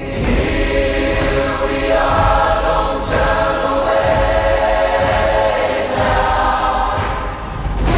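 Soundtrack music with sustained choir-like voices holding chords over a low pulse, with a sharp accent about three seconds in.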